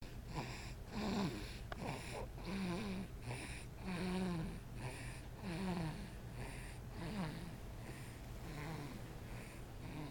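Newborn baby snoring in sleep: each breath carries a short, rasping, pitched snore, about one every second and a half, with softer breaths between. The snoring is not from a cold or a stuffy nose; the baby always sounds like this.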